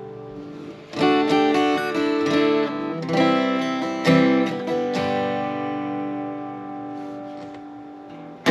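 Steel-string dreadnought acoustic guitar strummed: a chord fades, then a quick run of hard strummed chords starts about a second in, and the last one, about four seconds in, is left to ring out and slowly fade.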